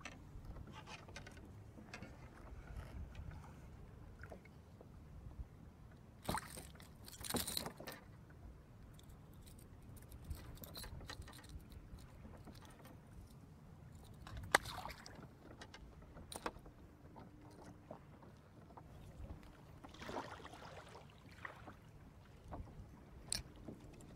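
Small sounds of a plastic fishing kayak on the water: a steady low rumble with scattered clicks and rattles of fishing gear being handled. The loudest are a rattle about six to eight seconds in and a sharp click near fifteen seconds.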